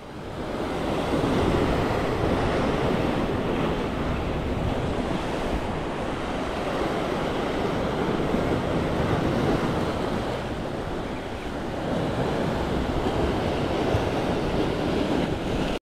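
Sea surf washing against a rocky shore in a steady rush, swelling and easing slightly, with wind buffeting the microphone.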